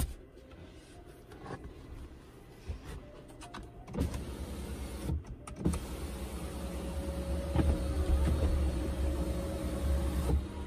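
Electric motor of a 2021 Kia Optima's panoramic sunroof running as the roof opens: a steady hum with a faint whine that starts about four seconds in and cuts off suddenly just before the end. A few light clicks and knocks come before it.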